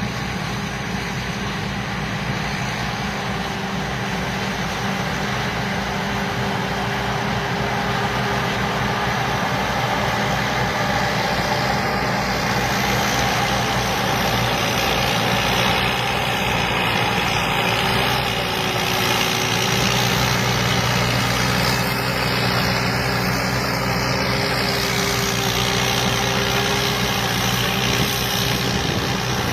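Combine harvester's diesel engine running steadily, with the continuous whir and rush of its machinery.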